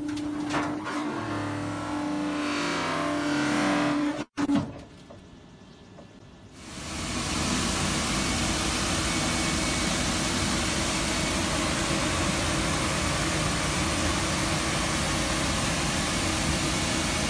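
A steady machine hum with one held tone breaks off at a cut about four seconds in. After a short lull, the radio-frequency vacuum kiln's machinery starts a loud, even rushing noise with the chamber under vacuum, and keeps it up without change.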